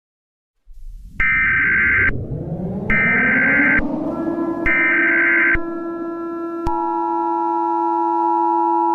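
Emergency Alert System sequence: three short bursts of warbling SAME header data tones, then the steady two-tone EAS attention signal starting about two-thirds of the way in. Underneath, a low drone sweeps up in pitch and then holds steady.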